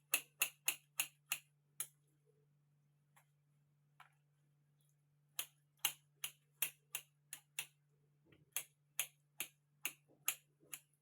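Kitchen knife chopping on a cutting board: runs of sharp, even taps at about three a second, with pauses between runs, over a faint steady low hum.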